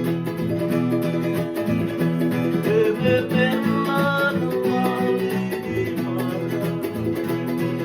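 Fijian sigidrigi string-band music: acoustic guitars and other plucked strings playing steadily.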